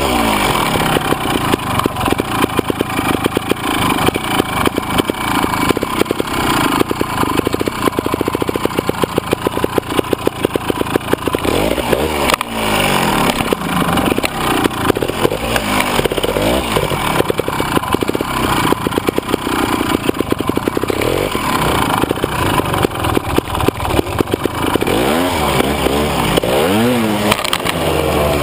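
Trials motorcycle engine heard from on board the bike, running at low speed and repeatedly blipped, its pitch rising and falling with each quick rev as the bike is picked over steep, rough ground. There are sharper revs about twelve seconds in and again near the end.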